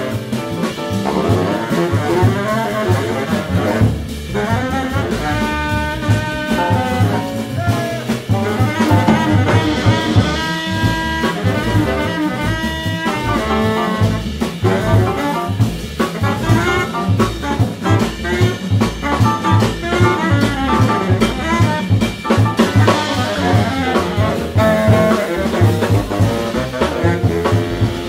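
Live small-group jazz: baritone saxophone, trombone, piano, double bass and drum kit playing together with a steady swinging beat.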